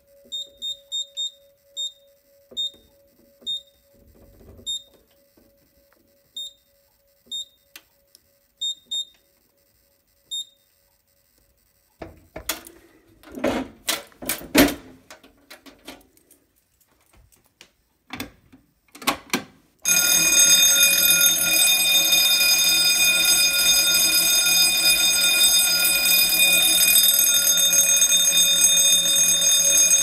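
Short high keypad beeps from a Simplex 4008 fire alarm control panel as its buttons are pressed, then some knocks and rattling. About twenty seconds in, a Wheelock 46T-G6-24 fire alarm bell starts ringing loudly and keeps ringing: the system is in alarm from a pull station.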